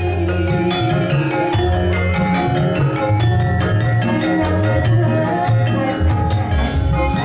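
Javanese gamelan music: bronze metallophones ringing out held notes over a steady drum beat several times a second.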